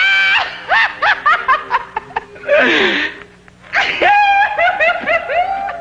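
A person laughing in quick repeated bursts, with a breathy intake in the middle before a second run of laughter.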